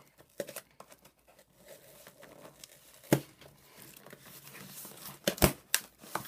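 Packing tape and cardboard being torn off a cardboard shipping box, with crinkling between a few sharp rips: one about three seconds in and two more close together about five and a half seconds in.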